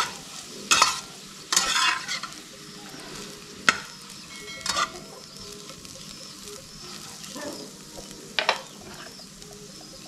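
A metal fork scraping and stirring eggs with green peppers in a lightly oiled frying pan, against a steady sizzle of frying. The scrapes come as about five separate strokes.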